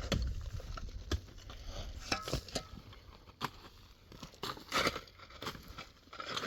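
Stones and gravel being shifted by hand: irregular crunches, scrapes and knocks, with a cluster about two seconds in and another near five seconds.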